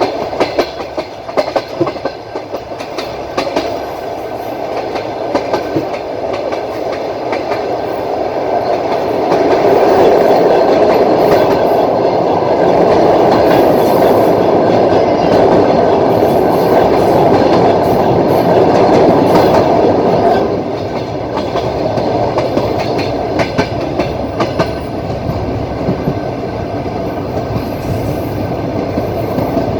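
Passenger train's wheels clacking over rail joints, heard from inside the carriage, over a steady rolling rumble. About a third of the way in, the rumble swells much louder for about ten seconds, then drops back suddenly.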